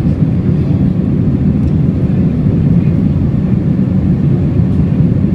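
Steady, loud low rumble of an Airbus A321's jet engines and rushing air, heard from inside the passenger cabin during takeoff.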